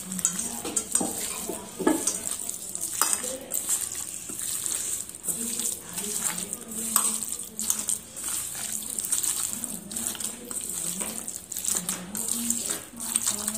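A hand mixing marinated chicken pieces in a stainless steel bowl: irregular wet knocks and scrapes of meat and fingers against the steel.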